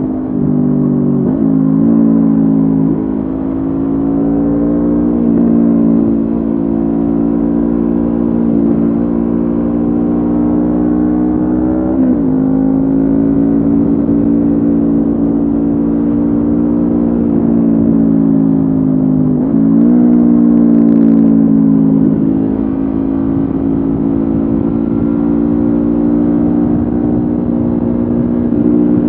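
Honda CB500F parallel-twin engine running through a Mivv GP Pro aftermarket exhaust at steady cruising revs. Its pitch dips sharply and climbs back a few times, about a third of the way in and again about two-thirds in.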